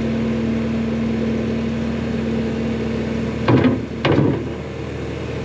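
Engine idling steadily, most likely the skid steer lifting the tractor wheel. A little past the middle two loud short sounds come about half a second apart.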